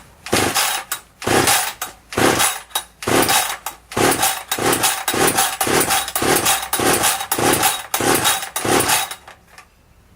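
Husqvarna T540 XP two-stroke top-handle chainsaw being pull-started: about fourteen strokes of the starter cord, each cranking the engine over, spaced about a second apart at first and then faster, about two a second. The engine does not catch on this hard first start after unboxing.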